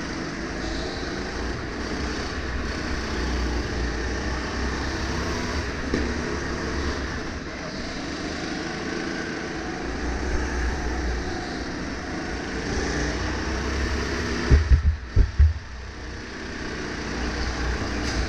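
Two-seat rental go-kart's 270 cc engine running at speed around the track, heard from on board along with the other karts. A cluster of loud low thumps comes about three-quarters of the way through.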